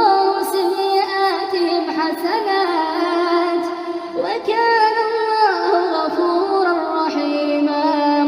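A single voice chanting a Quran recitation in melodic tajweed style, with long held, ornamented notes and no instruments.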